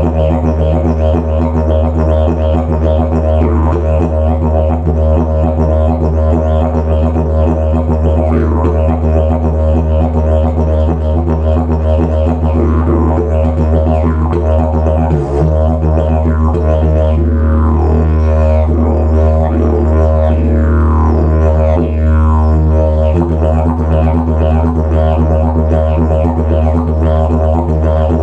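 Slide didgeridoo played as a steady low drone with a rich stack of overtones. Through the middle part, sweeping rises and falls of the overtones shape the tone, with a brief break about fifteen seconds in.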